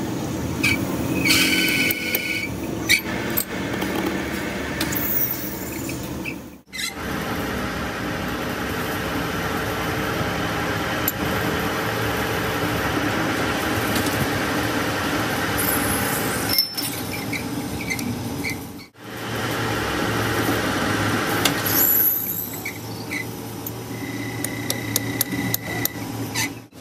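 Metal lathe running while a cutting tool turns the ball of a steering tie rod ball pin held in the chuck: a steady machine hum with brief high whines of the tool on the steel, near the start and again near the end. The sound drops out sharply twice.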